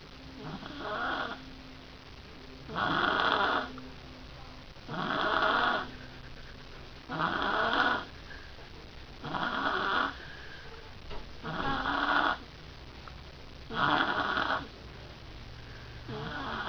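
A person snoring in a steady rhythm, one snore about every two seconds.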